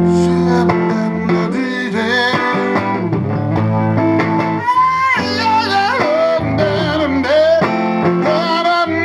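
Live blues band playing: guitar and bass chords, with a high, wavering melody line that bends in pitch coming in about halfway through.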